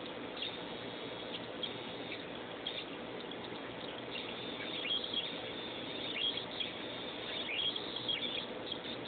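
PICAXE-driven noisemaker playing tones set by an infrared reflective sensor's reading: a faint steady low hum with quick high chirps and short falling blips as a finger passes over the sensor and changes the reflected light.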